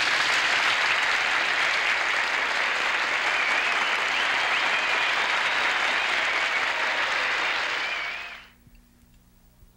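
Studio audience applauding, dying away about eight seconds in to a faint low hum.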